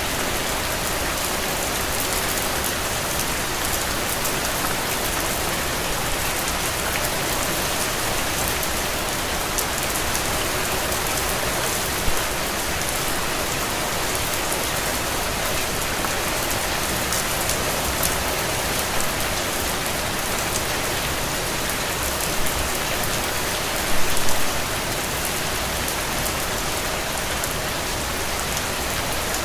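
Steady rain falling on a window: an even hiss with a few louder drops, the loudest a brief patter about 24 seconds in.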